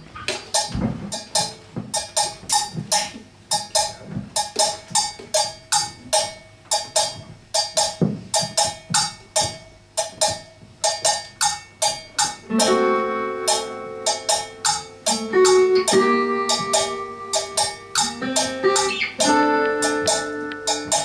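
A small live band plays an instrumental intro on banjo, upright double bass and drums, with evenly spaced plucked and struck notes. Held, sustained notes join about halfway through.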